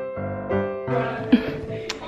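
Background piano music. About a second in, the sound turns busier and noisier, and a short sharp click comes near the end.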